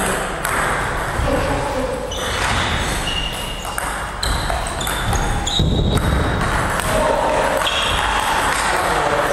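Table tennis rally: the plastic ball clicks off the paddles and the table and bounces on the wooden floor, with a few short high squeaks. The hits echo in a large, bare gym hall.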